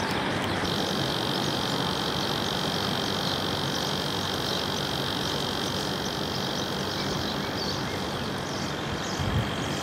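Steady outdoor city ambience: a constant rush of distant traffic with a thin, steady high-pitched tone over it.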